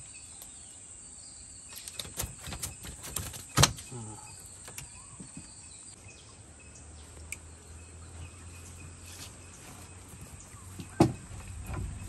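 Steady high-pitched insect drone, with a cluster of clicks and knocks about two to four seconds in and one sharp knock near the end as a fish is handled out of a fishing net in a wooden dugout canoe.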